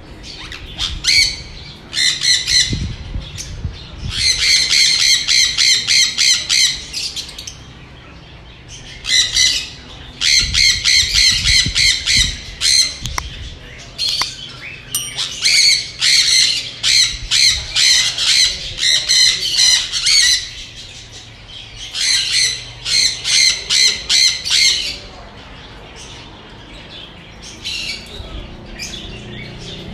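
Loud bouts of fast, repeated high-pitched squawking calls, each run lasting from one to several seconds, with short quieter gaps between them.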